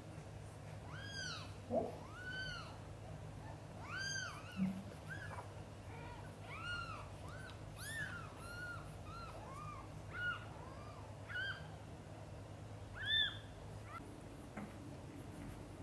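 Newborn kittens mewing: many short, high-pitched cries that rise and fall, one after another, with a louder cry near the end, over a faint low hum.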